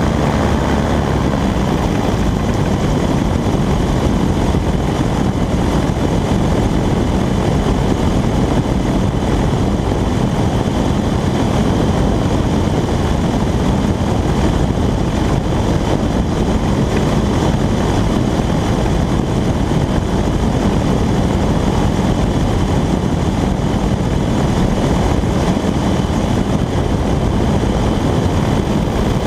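Subaru-engined VPM M16 gyrocopter in flight: the pusher engine and propeller running steadily, mixed with the rush of wind over the open cockpit.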